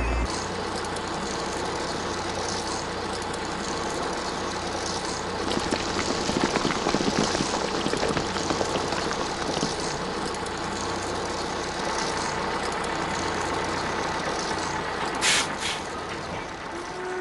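Cartoon truck engine running, louder and fluttering for a few seconds midway, with a short sharp hiss like an air brake near the end.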